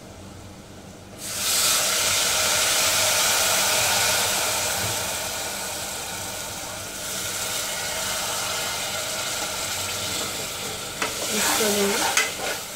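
Water hitting hot oil and fried spice masala in an aluminium pressure cooker: a sudden loud sizzle about a second in that eases a little into a steady hiss. Near the end, a metal spoon knocks and scrapes against the pot as it is stirred.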